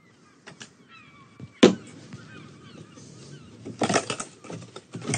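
Wooden boards being handled on an attic floor: one sharp knock, then faint squeaks, then the boards clattering and scraping as they are moved, twice near the end.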